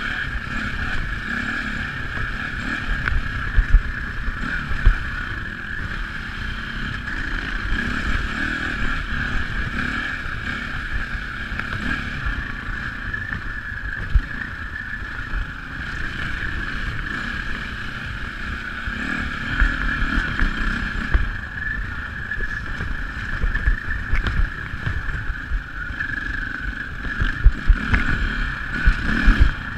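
Dirt bike engine running steadily under way on a rough trail, with occasional thumps from the bike hitting bumps, several near the end.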